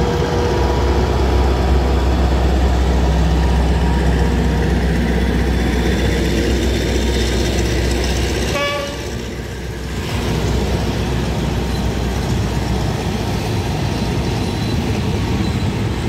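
Diesel-electric locomotive (Alsthom, No. 4221) of a departing train running past with a deep, steady engine drone. From about nine seconds in, the drone gives way to the steady rumble of passenger coaches rolling by on the track.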